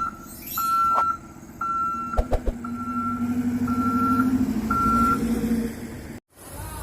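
Vehicle reverse alarm beeping about once a second over a running engine that swells as the vehicle moves. The beeps stop after about five seconds, and the sound cuts out briefly near the end.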